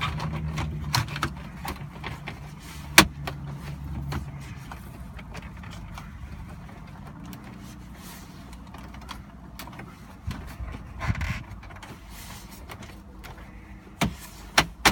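Plastic centre-console trim pieces being handled and fitted into place: scattered clicks and knocks, one sharp snap about three seconds in and several more near the end. A low hum sits under the first few seconds.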